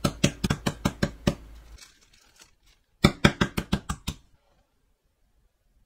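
Meat mallet pounding a chicken breast through greaseproof paper on a plastic chopping board to flatten it: a quick run of strikes for just over a second, a pause, then a faster run of about ten strikes around three seconds in.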